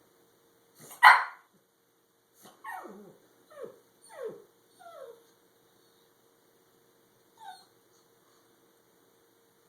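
A pug barks once loudly, then gives four short whining yelps, each falling in pitch, and one last small yip near the end.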